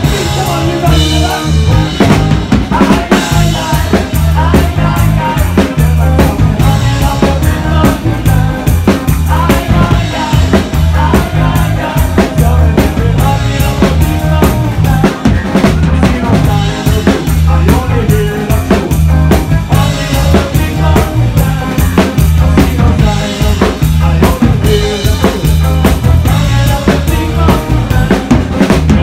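Live band playing loud, upbeat ska on drum kit, bass guitar and electric guitar: a steady kick-drum and snare beat with rimshots over a repeating bass line.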